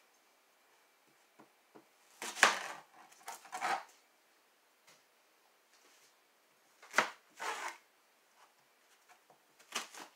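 Chef's knife cutting a red onion on a cutting board: a few separate cuts, the loudest about two seconds in and again about seven seconds in, with a fainter one near the end.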